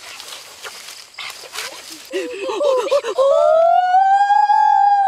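A child's excited, wordless vocalising: quick squealing syllables, then about three seconds in a long, drawn-out high cry that rises and holds.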